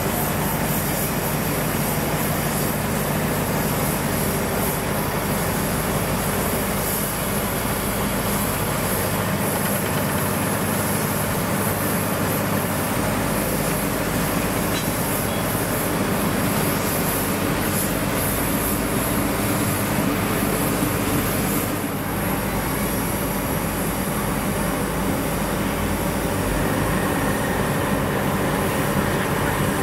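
Oil-fired, Japanese-built steam locomotive running with a steady, continuous noise. The sound shifts about 22 seconds in.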